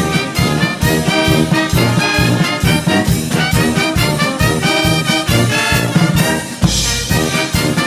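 Background music led by brass instruments, with a steady swinging beat.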